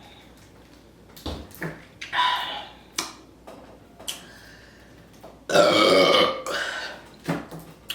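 A person burping loudly several times in a row, the longest and loudest burp a little past halfway through, with a few short clicks in between.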